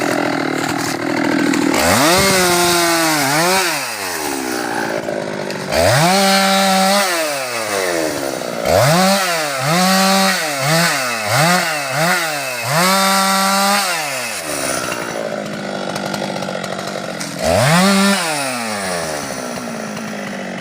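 Husqvarna 390XP two-stroke chainsaw being revved in repeated bursts. Each time the engine climbs to full speed, holds there briefly and drops back, with a quick run of short revs in the middle and a lull before one last burst.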